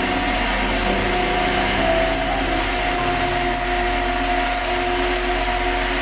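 Steady hiss of a welding arc on pipe, mixed with background music of held notes.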